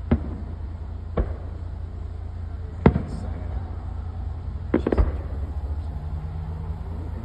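Distant firework shells bursting: about five sharp booms at uneven gaps, the loudest about three and five seconds in, over a steady low rumble.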